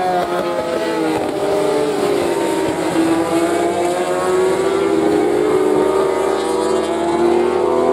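A pack of 1000 cc inline-four superbikes racing, several engine notes overlapping. The pitch falls over the first three seconds, then climbs slowly as the bikes pull through the curve.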